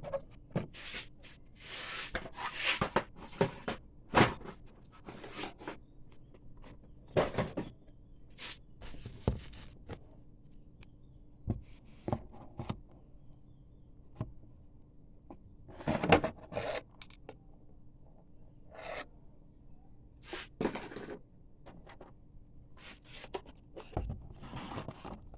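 Unboxing toy soldiers: irregular rustles of packaging with scattered clicks, knocks and light scrapes as the contents are handled, one louder knock about sixteen seconds in.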